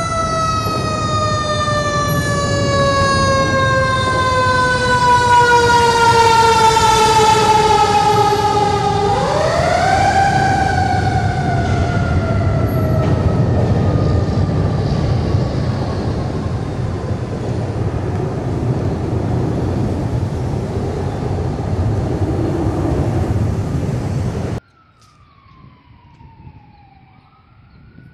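1999 Pierce Dash fire engine's siren wailing loudly over traffic rumble: its pitch slowly falls, is pulled back up about a third of the way in, then falls again and fades. Near the end the sound drops away suddenly to quiet, with a faint distant siren sweeping down and back up.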